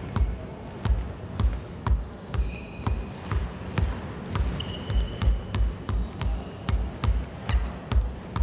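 Basketball dribbled on a hardwood gym floor, bouncing in a steady rhythm of about two to three bounces a second, with a few short high squeaks in between.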